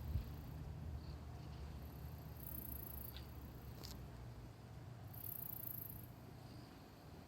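Faint outdoor ambience: a steady low rumble under a very high-pitched insect buzz that comes twice, each time for under a second, with a couple of faint clicks in between.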